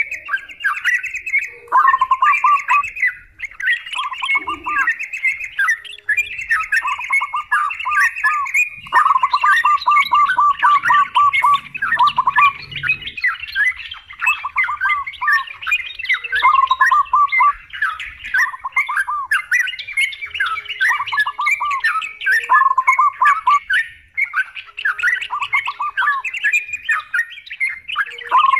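Yellow-vented bulbuls (trucukan) chattering and singing in a dense, continuous stream of bubbling calls, broken by rapid runs of repeated notes.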